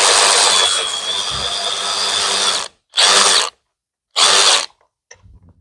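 Power drill backing out bolts: one long run of about two and a half seconds, then two short bursts.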